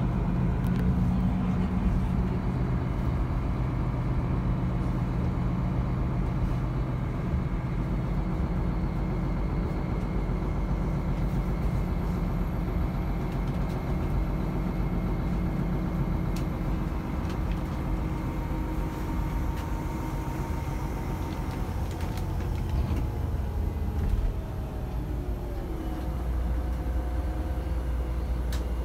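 A vehicle engine running steadily, heard from inside the cabin, with a low hum and higher whines; about twenty seconds in a whine falls in pitch and the level drops a little.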